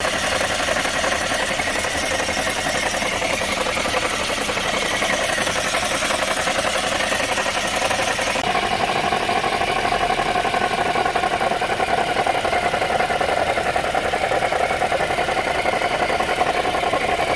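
Chevrolet Sonic engine running with a steady whirring noise from the alternator, the sign of a broken alternator bearing. The sound's pitch and character change abruptly about halfway through.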